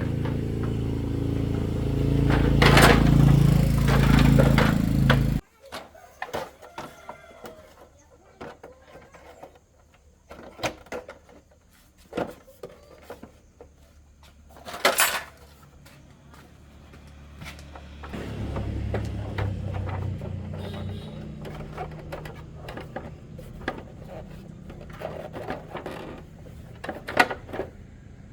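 Small motorcycle engine running, cutting off abruptly about five seconds in. Scattered metallic clicks and knocks of hand-tool work follow, and past the halfway point a quieter engine hum returns.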